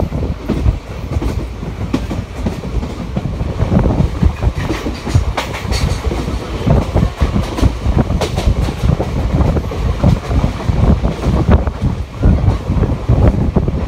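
Passenger coaches of an express train running along the track, with steady wheel clatter and knocking over the rails, heard from an open coach door.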